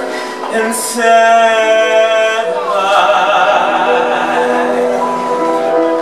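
Male voice singing a long held note about a second in, sliding down after a second and a half, over sustained piano chords from a live band.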